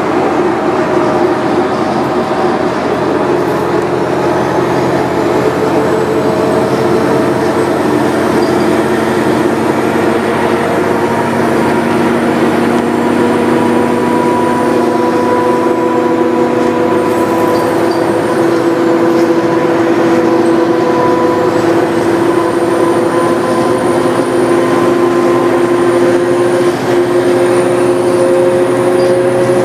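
Inside a New Flyer D40LF diesel city bus travelling at speed: a steady drone of engine and drivetrain over road noise. Its tones creep up a little partway through, with a faint high whine above.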